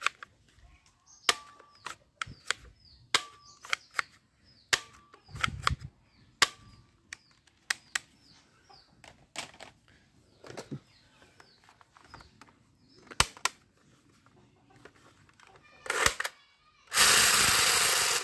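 Plastic toy guns clicking and knocking as they are picked up and handled, a string of separate sharp clicks. Near the end a loud rattling burst lasts about a second.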